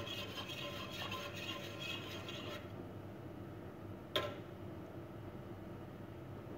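Wire whisk stirring thick béchamel sauce in a steel pot, its wires scraping and clicking against the metal, stopping after about two and a half seconds. A single sharp clink follows about four seconds in, over a low steady hum.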